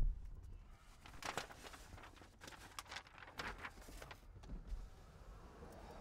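Quiet car cabin with a faint low rumble and a few soft rustles of fabric as a child handles a doll's clothing.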